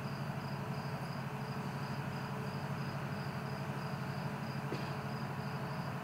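Crickets chirping in an even rhythm, about three chirps a second, over a low steady hum.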